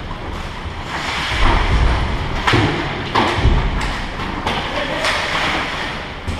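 Ice hockey play heard from beside the goal: skate blades scraping the ice and sharp stick and puck knocks, with several dull thumps about one, two and three seconds in.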